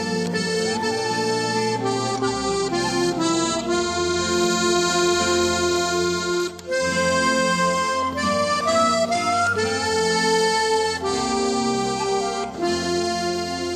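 Instrumental background music: sustained chords with a slow melody over held bass notes.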